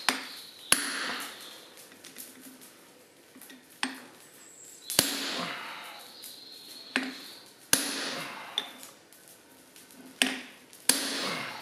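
Ball-peen hammer striking a set hammer held on a hot iron chain link on an anvil, forging a scarf set-down for a forge weld. About eight sharp metal-on-metal blows at irregular intervals, a second or more apart, the heavier ones with a brief ring.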